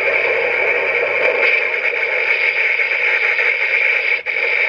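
Complete Selection Modification Den-O toy belt, set up with the G Den-O faceplate, playing a loud steady static-like hiss effect through its speaker; it breaks off for an instant about four seconds in.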